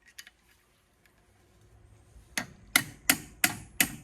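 A hammer striking a pin punch in a steady run of sharp metal taps, about three a second, driving out the pin that holds the lever inside a 12-valve Cummins VE injection pump. The tapping starts about two and a half seconds in, after a couple of light clicks as the punch is set in place.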